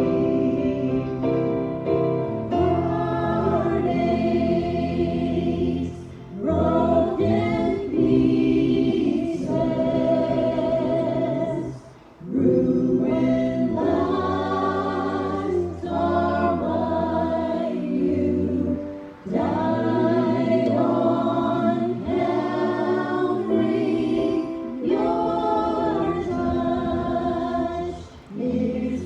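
Gospel singing: several voices singing together over a sustained instrumental accompaniment, in phrases with brief breaks between them.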